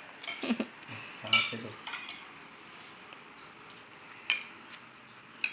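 Metal spoons clinking and scraping against plates and bowls during a meal, with a sharp clink about four seconds in and another at the very end.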